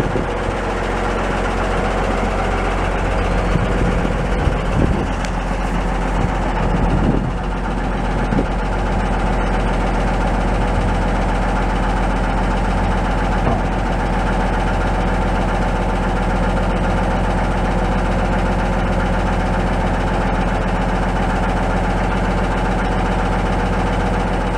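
Cummins NTC 14-litre inline-six diesel engine of a Freightliner FC60 dump truck idling steadily. A few dull knocks come in between about four and eight seconds in.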